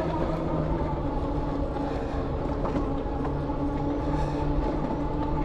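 Electric bike riding along a trail: a steady motor whine of several held tones over a continuous low rumble from the tires and the ride.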